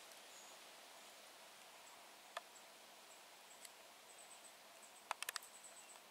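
Quiet woodland ambience with faint, thin, high-pitched chirps and a few sharp clicks, including a quick run of four clicks about five seconds in.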